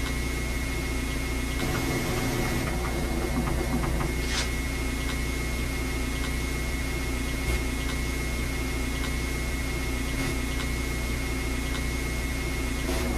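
Steady hiss and low hum with a thin, high, constant tone: the background noise of an old VHS camcorder recording. A faint click comes about four seconds in.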